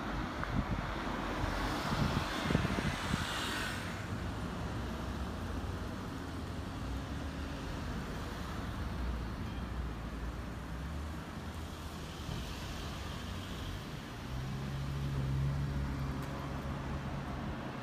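Street traffic: cars going by on the road, with a louder pass in the first few seconds and a low engine hum for a few seconds near the end.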